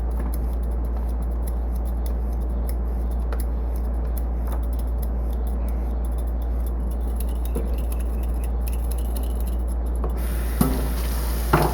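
A steady low hum with light clicks and rubbing of small kitchen items being handled on a counter; a higher hiss joins near the end.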